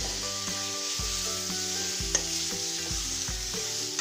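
Chopped banana flower frying in oil in an aluminium kadai, sizzling steadily, while a metal spoon stirs and scrapes it, knocking against the pan every half second or so.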